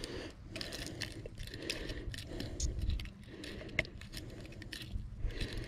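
Irregular sharp clicks and light rattling, with soft rustling between them.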